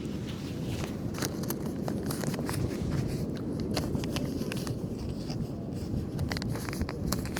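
Steady low rumbling noise with many small clicks and scrapes scattered through it.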